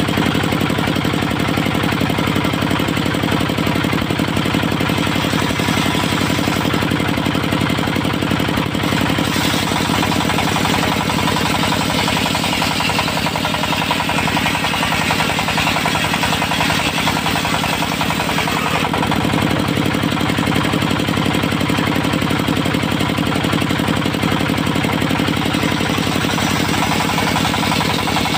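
Diesel engine running steadily with a fast knock, driving a circular saw blade. From about nine to nineteen seconds a higher hiss from the blade cutting through teak rises over it, then drops away.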